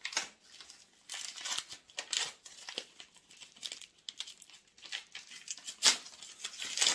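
Decorative gift-wrapping paper being torn open and crinkled by hand, in irregular rips and rustles, the loudest rip about six seconds in.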